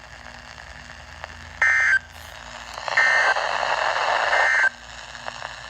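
Three short, loud, buzzing data bursts about 1.3 seconds apart: the Emergency Alert System end-of-message code that closes a warning broadcast. A hiss runs under the second and third bursts.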